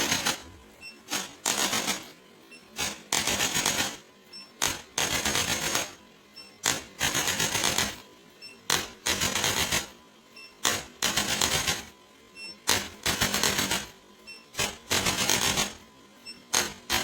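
A mechanical device running in repeated bursts, about one every two seconds: each burst opens with a sharp click, followed by just under a second of rapid clatter.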